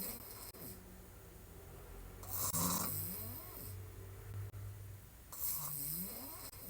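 A woman snoring hard while sleeping on her back with her mouth open, one snore about every three seconds: the end of one at the start, a loud one in the middle, and another beginning near the end.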